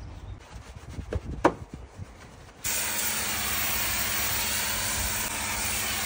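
Hand scrubbing on a car headlight, with a few light knocks, then about two and a half seconds in a pressure washer's spray starts suddenly against the bodywork: a loud, steady hiss over the low hum of the washer's pump.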